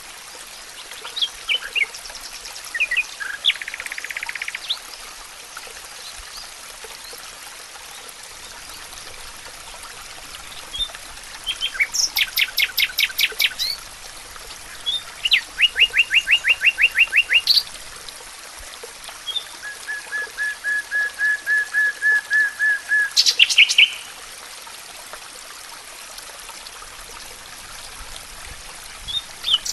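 Songbirds singing in a forest: a few short calls, then several separate phrases of rapid repeated notes and trills, the last growing louder and ending in a quick flourish. A steady hiss sits underneath throughout.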